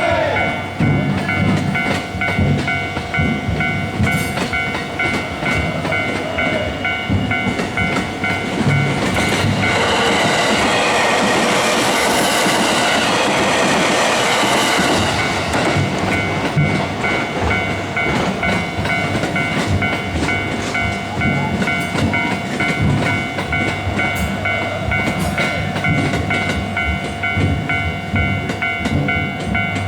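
Railway level-crossing warning bell ringing steadily and repeatedly, while a train passes through the crossing: a rushing, rumbling swell from about ten seconds in that peaks around thirteen seconds and fades by sixteen seconds.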